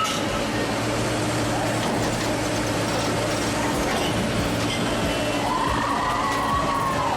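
Heavy vehicle engine running steadily, with a brief rising-and-falling tone near the end.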